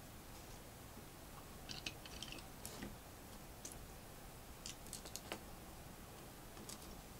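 LEGO plastic pieces clicking as they are handled and pressed together: faint, irregular small clicks in short clusters, the sharpest about two, three and five seconds in.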